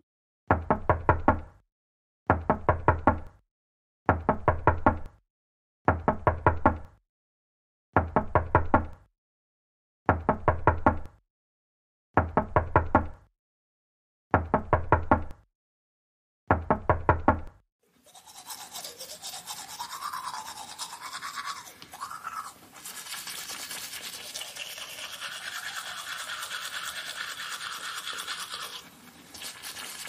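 Knuckles knocking on a door: nine bursts of several quick raps each, about two seconds apart. After about 18 seconds the knocking gives way to the steady scrubbing of someone brushing their teeth.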